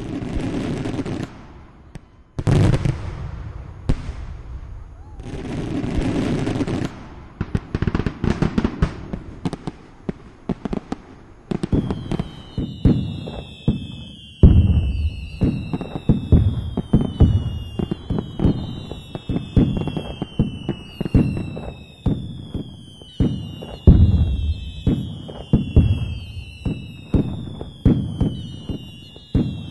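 Aerial fireworks shells bursting with booms and crackling. Partway through, repeated falling whistles join in, one every second or two, among the bursts.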